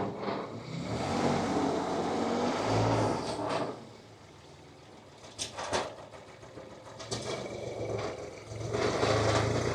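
Small diesel engine of a compact earthmoving machine working under changing load, its sound rising and falling. There is a sharp clank at the start and a couple of knocks about halfway through. The engine eases off for about a second around the middle.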